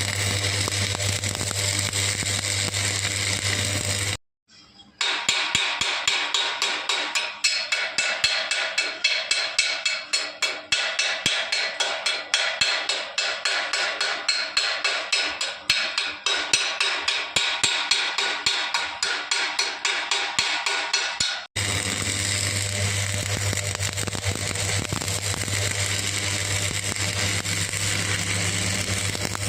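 Stick-welding work on thin steel. A steady electric buzz with hiss is broken in the middle by a long run of rapid sharp strikes, several a second, before the buzz returns.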